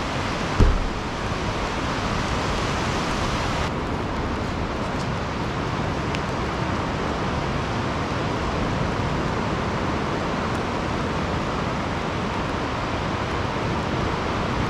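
Steady rushing noise of ocean surf and wind on an open beach, with a single low thump about half a second in.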